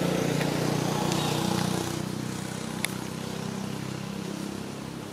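A motor vehicle engine running nearby, loudest for the first two seconds and then fading away, with a single sharp click about three seconds in.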